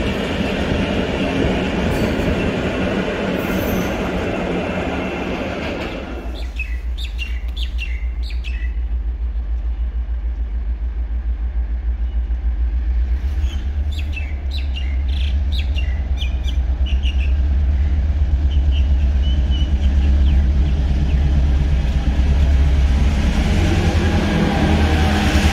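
A train rolling past on the rails cuts off abruptly about six seconds in. A heavy engine's low steady rumble follows and slowly grows louder, with birds chirping over it. Near the end, rolling noise builds again as another train approaches.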